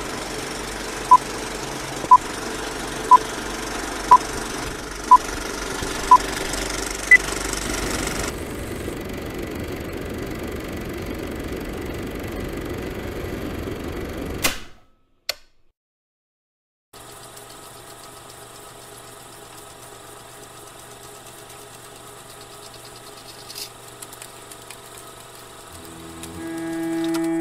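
Film-leader countdown beeps: six short beeps one second apart, then a single higher beep, over a steady mechanical whirring noise. The noise stops with a click about halfway through. After a couple of seconds of silence a fainter steady hum comes in, and solo cello music begins near the end.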